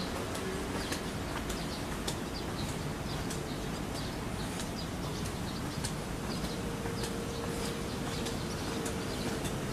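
Outdoor ambience: a steady low background rumble, with small birds chirping in short, high notes scattered throughout. A faint steady hum comes in during the second half.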